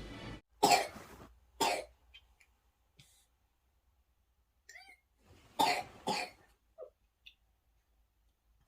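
A sick toddler coughing: two coughs about a second apart, then a few seconds later two more in quick succession, with small voice sounds and breaths between them. It is a cough her mother calls scary.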